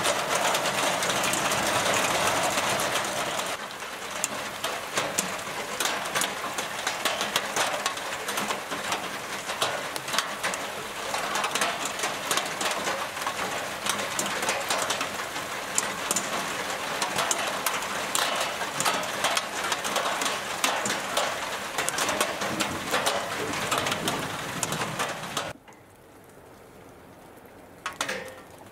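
Heavy rain pouring down, a steady rush with many sharp drop hits close by. It stops suddenly near the end, leaving quiet with one short sound just before the end.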